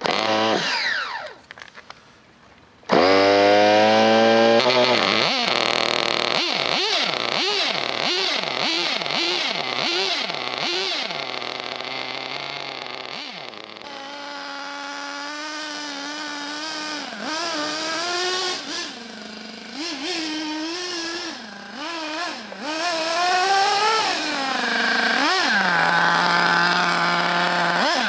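Alpha F850 nitro glow-fuel engine of a Radiosistemi Crono RS03 RC buggy firing up suddenly about three seconds in, then revved in a string of quick throttle blips. It then runs as the buggy drives, its high-pitched buzz rising and falling with the throttle.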